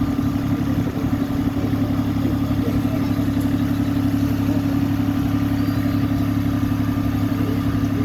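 Miniature railway locomotive's engine running steadily at a constant pitch, a low even hum.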